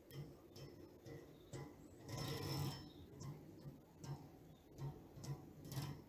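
Mechanical clicking and knocking in a steady rhythm of about two beats a second, with a louder rushing, clattering burst about two seconds in.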